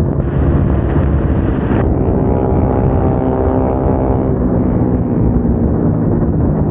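Single-cylinder motorcycle engine with an aftermarket exhaust running steadily at road speed. The harsher upper part of the exhaust note eases off about two seconds in.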